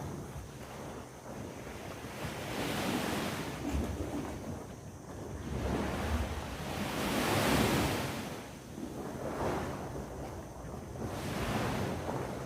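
Sea waves breaking and washing on the shore, three surges about four seconds apart, the middle one the loudest, with some wind on the microphone.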